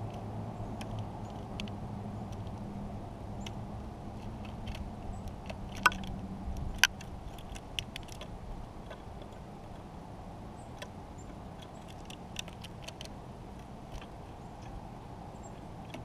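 Scattered small sharp clicks and taps of a white-breasted nuthatch pecking at seed on a wooden log feeder close to the microphone, two louder clicks about six and seven seconds in, over a steady low hum.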